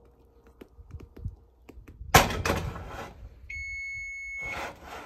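Light clicks of handling, then a loud thunk with a short clatter about two seconds in. After it comes a kitchen appliance's electronic beep, one steady tone held for about a second, followed by more rattling.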